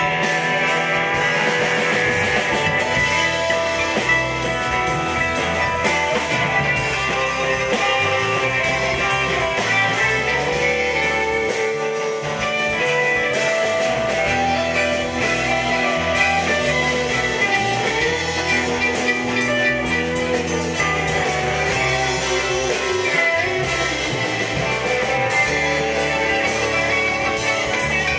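Live blues-rock band playing an instrumental passage: electric guitar over drum kit and bass, with a mandolin.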